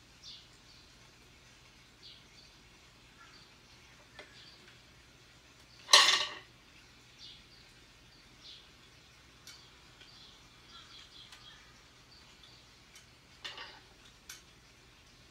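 Light metallic clicks and clinks from handling a circular sock machine's latch needles and cylinder. One sharp, much louder metal clack comes about six seconds in, and a few smaller clacks come near the end.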